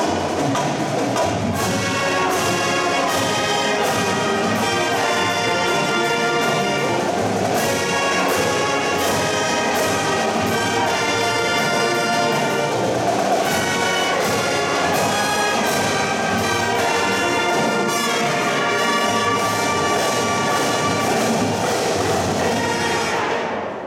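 High school marching band playing, led by brass (trumpets and trombones). The music stops a little before the end.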